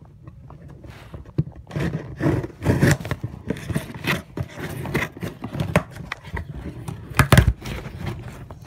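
Irregular scraping, rubbing and knocking of objects being handled close to the microphone, with one sharp, louder knock about seven seconds in.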